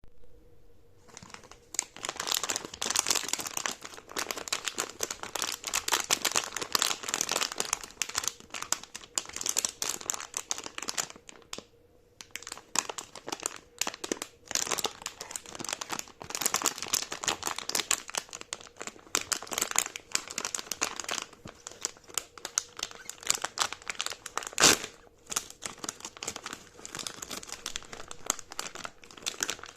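Crinkly toy packaging being handled and crumpled by hand: dense crinkling and crackling, with a brief pause about twelve seconds in and one sharp snap about three-quarters of the way through.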